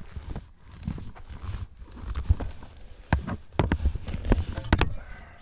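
Spade digging into dry soil: an uneven run of thuds and scrapes as the blade is pushed in and earth is levered out, with a few sharp clicks in the second half.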